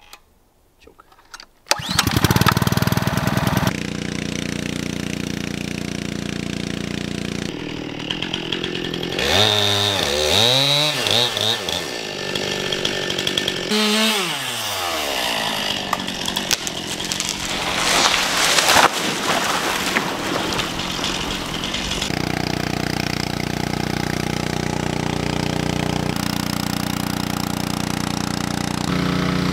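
Small gas-engine trash pump starting about two seconds in and running loud, its engine speed rising and falling several times before it settles into a steady run.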